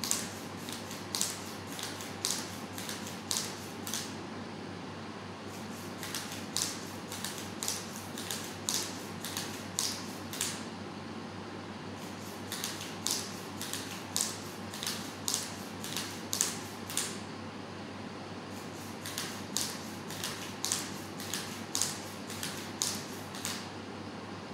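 Servo motors in the joints of a modular snake robot clicking and whirring in short strokes as it slithers, about two a second, in runs of a few seconds with brief pauses between them, over a steady low hum.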